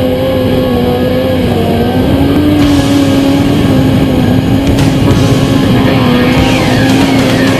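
A sport motorcycle engine held at a steady, slightly wavering pitch during a wheelie, with rock music with electric guitar coming in over it about two and a half seconds in.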